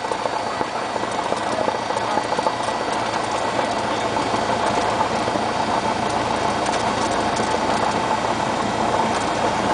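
Engine of a small single-engine propeller airplane idling steadily, heard from inside the cockpit.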